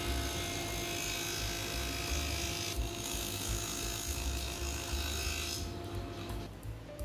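Table saw fitted with a dado stack running at a steady pitch while it cuts a wide groove through plywood. The cutting noise builds about a second in and drops away around six seconds, and the motor tone stops shortly after.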